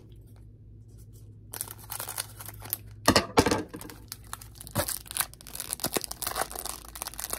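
Foil Pokémon booster pack wrapper crinkling and being torn open, with the loudest sharp tearing about three seconds in, then more crinkling as the pack is worked open and the cards are pulled out.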